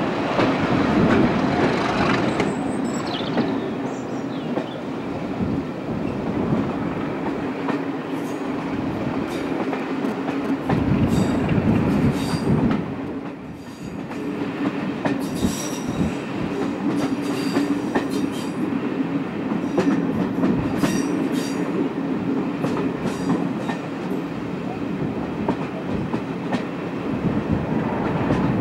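Train hauled by Class 37 diesel locomotive 37215, heard riding from a passenger coach: wheels click over the rail joints above a steady running drone and rumble.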